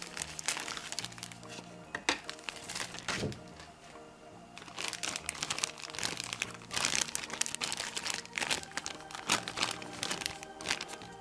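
Clear plastic bags of toy building pieces crinkling as they are handled and cut open with scissors, in irregular crackles, over background music.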